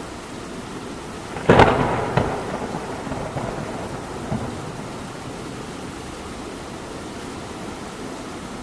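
Steady rain with a sudden sharp thunderclap about a second and a half in that rumbles and crackles away over the next couple of seconds, followed by a smaller crack about four seconds in.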